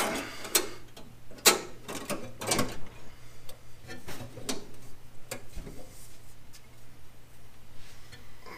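Irregular clicks and knocks as hands handle a metal fire suppression bottle and its mounting clamps and brackets. A faint steady low hum runs underneath.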